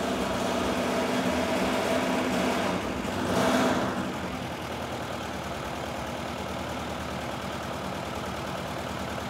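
Four-cylinder carbureted gasoline engine idling steadily on glow plugs instead of spark plugs, fired by hot-surface ignition with no spark. A short rushing noise comes about three and a half seconds in, after which the engine runs a little quieter.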